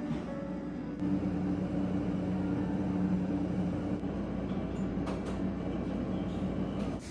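Glass-door drinks refrigerator humming steadily, a low mechanical drone with two held low tones. It gets louder about a second in and drops back at the very end.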